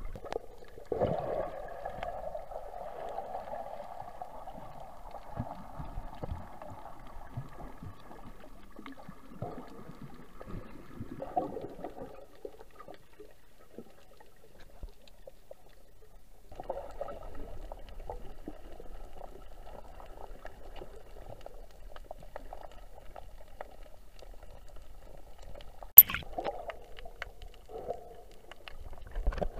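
Muffled underwater sound picked up by a submerged camera: water sloshing and gurgling around it as the snorkeler swims, with one sharp knock near the end.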